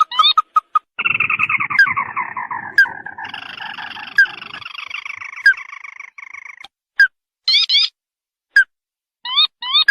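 Ruddy-breasted crake (tikusan merah) calls played as a bird-trapping lure. A few short rising notes open it. About a second in, a long descending rattling trill runs for about five seconds over sharp clicks roughly every second and a half. Near the end, quick runs of short rising notes return.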